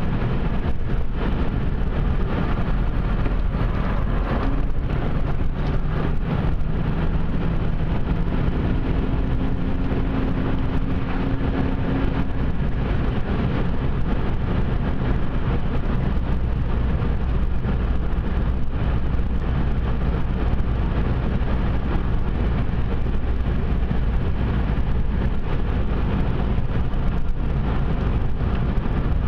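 A car driving along a two-lane asphalt road: steady tyre and road noise with the engine running.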